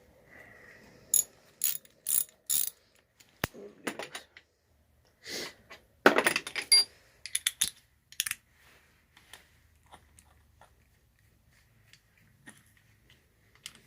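Ratchet wrench clicking and metal hand tools clinking in short, irregular bursts, with the busiest cluster about six seconds in.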